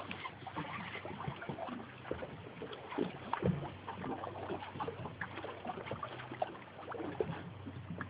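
Water lapping and splashing against a small fishing boat's hull, with scattered light knocks and a low steady hum. The loudest knock comes about three and a half seconds in.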